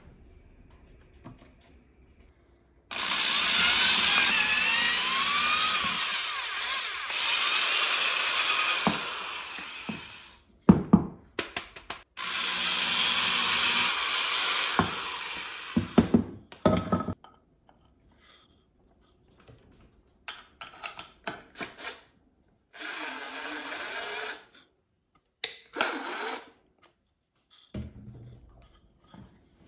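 Corded electric drill boring through a plywood board in two long runs of several seconds each, its motor pitch wavering as it spins and loads. These are followed by short bursts and clicks.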